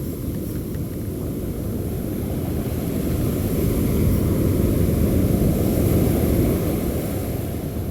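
Wind buffeting the microphone on an open surf beach, a low rumbling rush that swells louder midway and eases off near the end.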